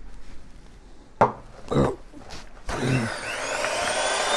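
A few short knocks, then about two-thirds of the way in a SilverCrest electric hand mixer switches on. Its whine rises as the motor speeds up and the beaters start beating sugar into egg yolks.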